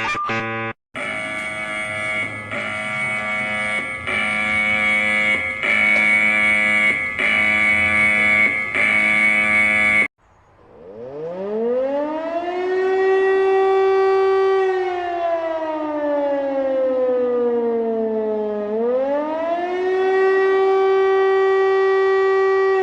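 A steady alarm tone of several notes held together sounds for about nine seconds and cuts off abruptly. Then a civil defense siren winds up from a low pitch, holds a high wail, slowly falls, and rises again to hold near the end.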